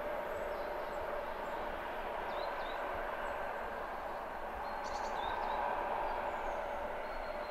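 Pair of coupled V100 diesel locomotives running light at a distance: a steady engine drone with a held tone that swells a little about five seconds in. Birds chirp briefly a few times over it.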